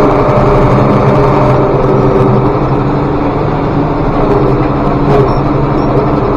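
Tractor engine running steadily at a constant speed, loud and even throughout.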